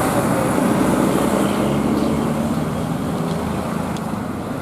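Diesel engine of a heavy road vehicle running steadily, a deep drone that eases off slightly toward the end.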